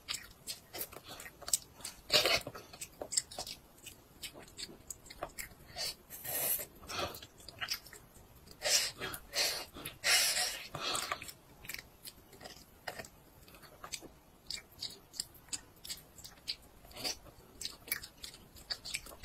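Close-up chewing by a toddler gnawing a piece of meat held in his hands: a stream of quick, wet mouth clicks and smacks, with a few longer, louder bursts of mouth noise.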